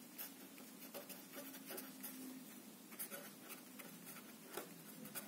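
Faint scratching of a felt-tip marker writing on paper, in many short strokes.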